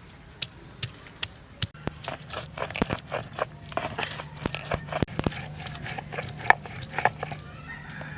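Food being chopped with a knife: evenly spaced strikes, about two or three a second. About a second and a half in, these give way to quicker, irregular cutting and crunching over a low hum.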